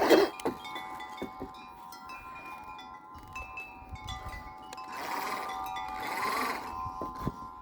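Wind chimes ringing, several steady tones overlapping, with small clicks and knocks throughout. From about five seconds in, a brief whirring swell rises and then fades.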